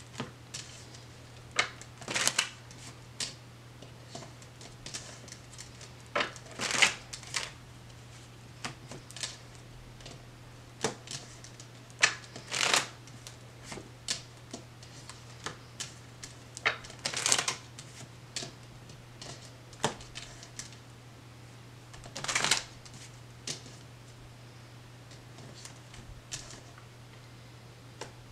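A deck of tarot cards being shuffled by hand on a table: short rustling bursts of cards about every five seconds, with scattered light clicks and taps of cards in between. A faint steady low hum runs underneath.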